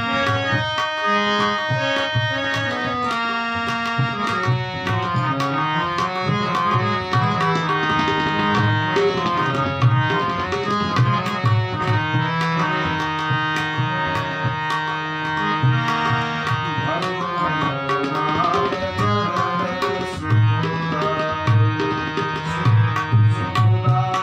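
Instrumental bhajan accompaniment: tabla playing a steady rhythm under sustained reed-organ chords, typical of a harmonium.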